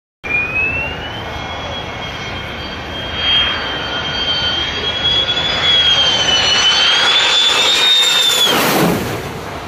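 F-16 fighter jet's turbofan on a low approach: a high whine that grows louder as the jet closes in, then drops sharply in pitch with a rush of noise as it passes close overhead near the end.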